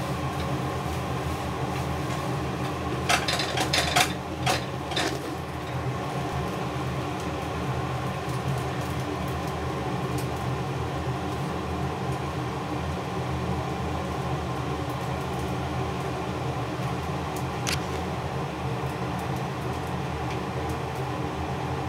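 Steady mechanical hum, as from a running room appliance, with a short cluster of clicks and knocks about three to five seconds in and a single tick near the end.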